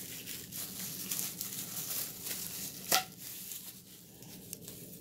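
Plastic packaging crinkling and rustling as a vacuum attachment is handled and unwrapped, with one sharp click about three seconds in, then quieter handling.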